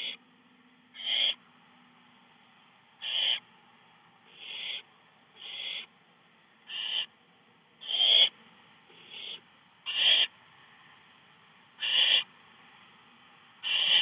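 Barn owl owlets giving repeated rasping hiss calls, the 'snoring' food-begging call of young barn owls: about ten short hisses, each swelling as it goes, at uneven loudness as the chicks call in turn.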